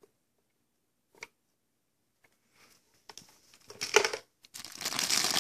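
Clear plastic wrapping crinkling as the bagged media basket is handled and pulled out of an Eheim Classic 250 canister filter, starting about four and a half seconds in. Before that it is nearly quiet apart from a single click and a short knock.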